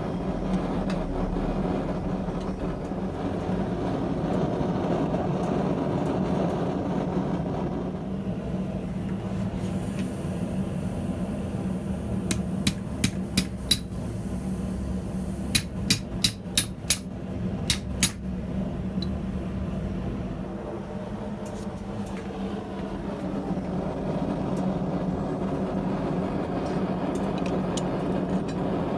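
Blacksmith's hammer striking iron on an anvil, in two quick runs: about four blows a little before halfway, then after a short pause about six more. A steady low hum sits beneath them.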